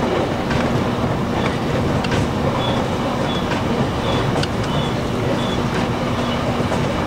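Electric train running along the track, heard from inside the passenger car: a steady rumble of wheels on rail with scattered clicks and a few faint, brief high-pitched squeals.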